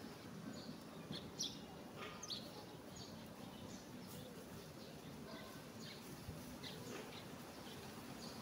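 Faint, scattered short bird chirps over a low, steady background noise.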